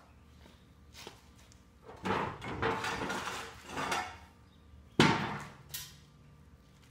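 A metal extension ramp being pulled off the end of a four-post car lift's runway: scraping and rattling for about two seconds, then a sharp metal clank about five seconds in, the loudest sound, and a lighter clank just after.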